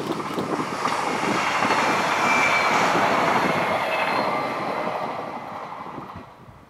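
A Thurbo Stadler GTW electric railcar passing, its wheels rolling on the rails with a few faint high tones. The sound swells for a few seconds, then fades away about six seconds in as the train draws off.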